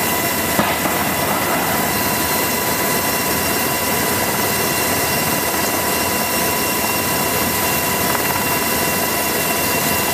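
AH-64E Apache attack helicopter hovering: steady rotor noise with a high, even turbine whine. About half a second in there is a short sharp crack as a Hellfire missile launches from the rails.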